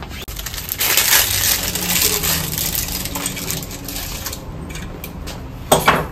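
Bicycle pedals and their plastic packaging being handled on a workbench: crinkly rustling with small metal clinks, then a single sharp knock near the end.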